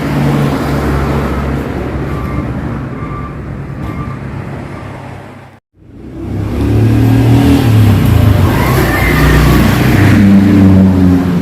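Yamaha RX-King single-cylinder two-stroke motorcycle engine running and revving through a hollowed-out (bobok) exhaust, re-tuned for a crisp, growling note. It cuts out abruptly about halfway through, then comes back louder with revs rising and falling.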